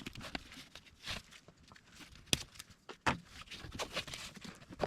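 Irregular clicks, knocks and light rattles of hoses and plastic fittings being handled and pushed back onto an engine's intake, with one louder click about two seconds in and another about three seconds in.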